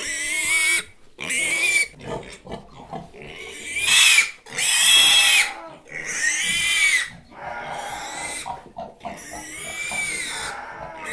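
A pig squealing over and over: a run of shrill squeals, each about a second long, arching up and then down in pitch.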